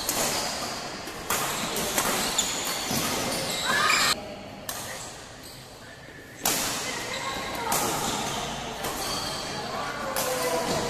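Badminton rally: sharp racket-on-shuttlecock hits a second or two apart, echoing in a large hall, with voices in the background.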